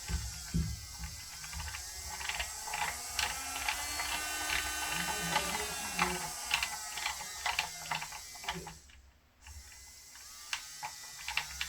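Repeated clicks and rattles from handling the nail drill and its controls, over a faint, wavering whine from the handpiece's small motor spinning up on a temporarily taped power wire.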